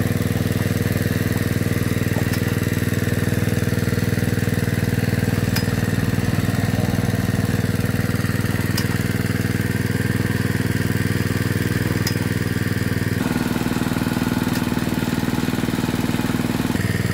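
Small engine-driven water pump (an alkon) running steadily, jetting water down the drill pipe to flush out the bore of a manually drilled well. Its note shifts slightly about three quarters of the way through.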